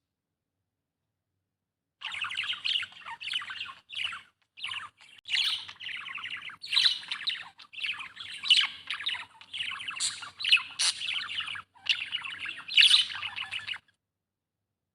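Budgie (budgerigar) chirping and warbling in a fast, continuous chatter with short squawky notes. It starts about two seconds in and cuts off abruptly near the end.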